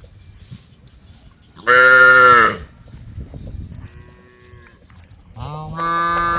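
Cows mooing: a loud moo about two seconds in, a fainter moo a couple of seconds later, and a long moo beginning near the end.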